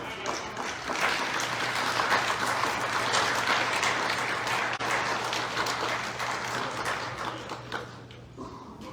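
Audience applauding, a steady patter of many hands clapping that fades away over the last second or so.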